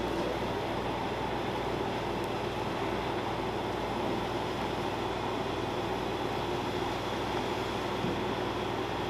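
Steady mechanical drone with a constant low hum and an even rushing noise over it, unchanging throughout.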